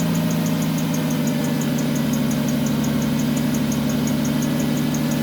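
Car engine idling with a steady hum and a high, rapid chirping repeating about five or six times a second. This is the squealing noise from the drive belt or its pulley, which the owner stops by spraying lubricant on it.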